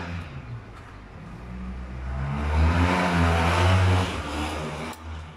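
A motor vehicle's engine passing by, growing louder to its loudest about three seconds in and then fading away.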